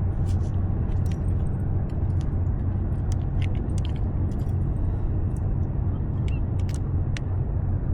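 Boat motor running steadily with a low hum, with scattered light clicks and rattles on top.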